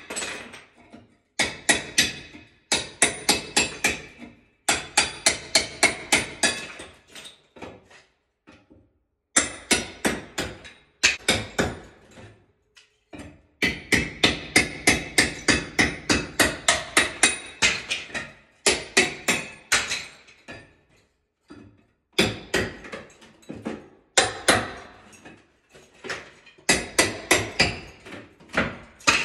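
Claw hammer striking a steel crowbar wedged behind ceramic wall tile, ringing metal-on-metal blows in quick runs of about five a second with short pauses between, prying the tile off the wall.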